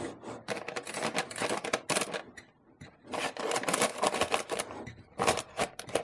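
Stainless steel measuring cup pressing and scraping buttered biscuit crumbs into a parchment-lined cake tin: a dense run of rapid crackles and scrapes, pausing briefly about halfway.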